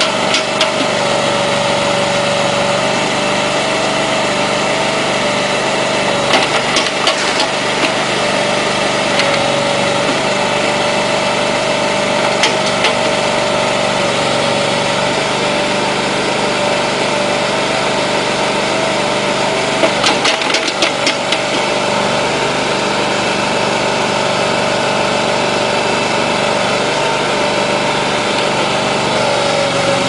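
Small engine of a compact ride-on machine running steadily, driving an Allmand backhoe attachment's hydraulics, with a constant whine over it. Short bursts of clanking come about six seconds in, again near twelve seconds, and around twenty seconds.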